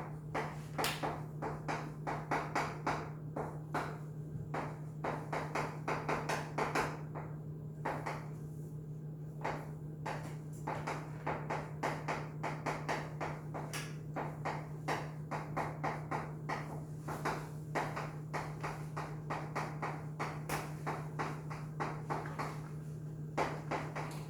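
Quick, irregular light taps and clicks, several a second, over a steady low hum.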